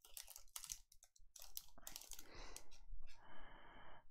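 Crinkling, crunching and clicking of a foil trading-card pack wrapper and its cards being handled close to the microphone, in short irregular bursts.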